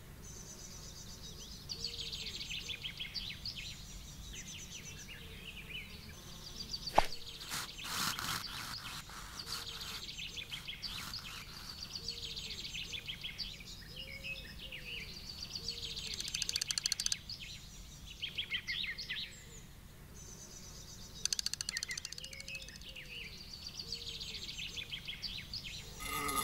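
Birds singing and chirping over a low steady outdoor background, with phrases of rapid trills. One sharp click about seven seconds in.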